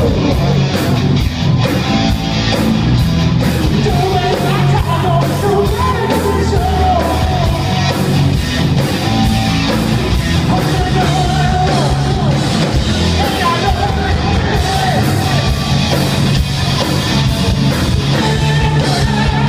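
Live hard rock band playing loud, with electric guitars, drums and a male singer's vocal line.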